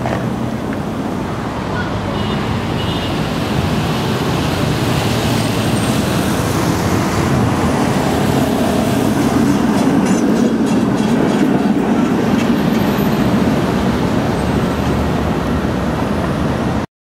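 PCC streetcars running on street rails: a steady rumble of wheels and motors that swells as a car passes close, with faint ticking from the rails, then cuts off suddenly near the end.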